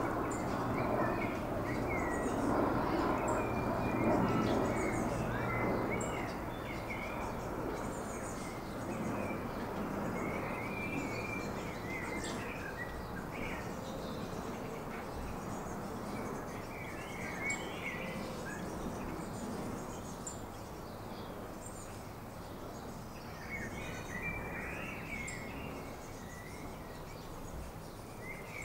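Garden ambience: short, scattered chirps and calls from small birds over a steady low background rumble, with a flurry of calls near the end.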